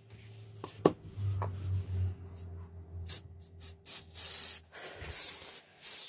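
Hands handling small wooden pieces on an MDF jig board. There is a sharp knock just under a second in, then a run of short scraping rubs of wood on board.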